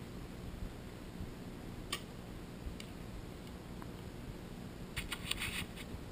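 A compound bow is shot about two seconds in, a single sharp snap of the string's release. A few faint clicks follow, then a quick run of small clicks and rattles near the end, from handling of archery gear.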